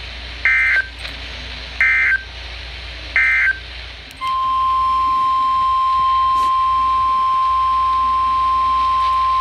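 Emergency Alert System digital data bursts: three short identical bursts about a second and a half apart, the SAME end-of-message code that closes a weather warning. A little after 4 s in, a steady single-pitched alert tone starts and holds: the NOAA Weather Radio 1050 Hz warning alarm that comes before the next warning.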